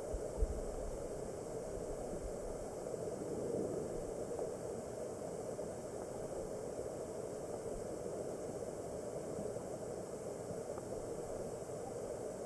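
Steady, muffled rush of stream water picked up by a camera submerged on the streambed, with one low thump about half a second in.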